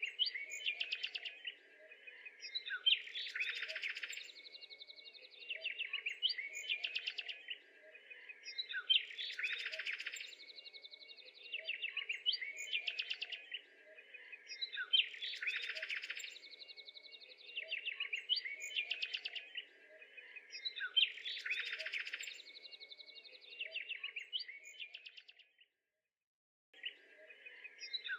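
Birds chirping and twittering in a near-identical phrase that repeats about every six seconds, like a looped recording, with a break of about a second near the end before it starts again.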